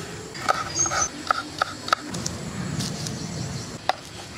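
Knife chopping vegetables on a cutting board: a run of quick, uneven taps over the first two seconds and one more tap near the end.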